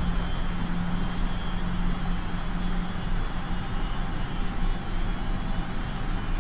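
Breadcrumb-coated fish slices frying in shallow hot oil in a pan, a steady sizzle over a low rumble, with a low hum that stops about three seconds in.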